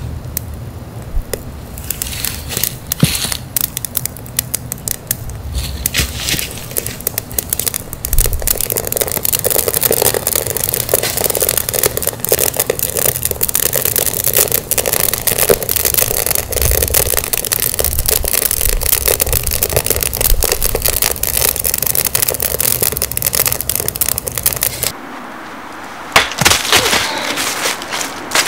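Campfire of split kindling and dry leaves crackling and popping steadily as it catches. Near the end the sound changes abruptly to rustling and a few knocks in dry leaves.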